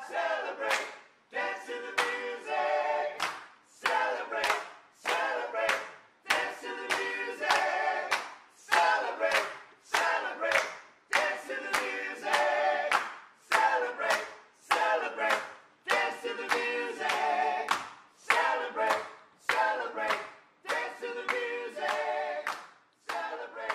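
A small group of men and a woman singing in close harmony a cappella, clapping their hands in a steady beat.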